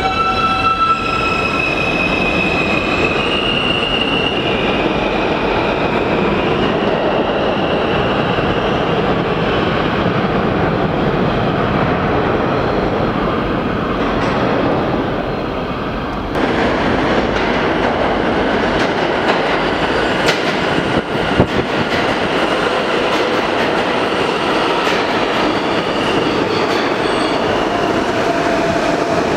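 R160A subway train pulling out of the station. Its electric motors give a whine of clear tones that step upward in pitch over the first few seconds, over the rumble of the wheels, and the rumble fades a little as it moves away. About two-thirds of the way in, the sound cuts to a subway train rolling close past the platform, with sharp clicks from the wheels over the rail joints.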